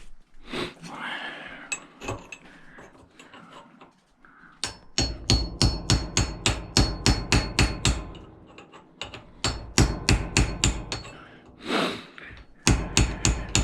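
Hammer striking a metal tool against a brass fitting to loosen it, since no socket is big enough, in fast runs of about three to four sharp blows a second with a faint metallic ring. The blows start about a third of the way in and pause briefly twice.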